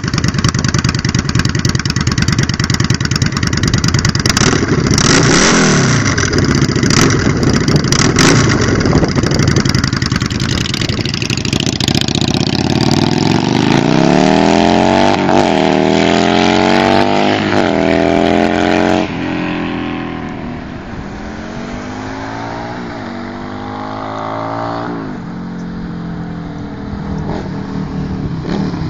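Yamaha V Star 650 Custom's air-cooled V-twin through Vance & Hines Short Shots pipes, with the carburettors not yet re-jetted. At first it runs and is revved close up. Then it is heard on the road pulling through the gears under load, its pitch climbing and dropping back at each shift, and it is quieter in the last part.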